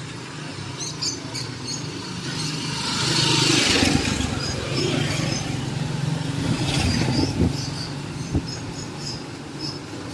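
Road traffic: a motor vehicle passes close, its noise building to a peak about three to four seconds in and then fading, over a steady low engine hum.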